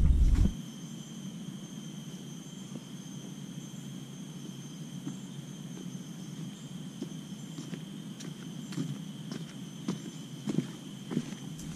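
Footsteps in sandals on a leaf-littered dirt forest trail, a few faint steps growing louder and more frequent near the end as the walker comes closer. A steady high insect drone runs underneath.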